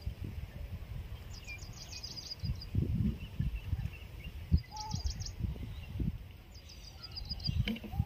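A bird calling in three short series of rapid, high chirps, over uneven low rumbling noise.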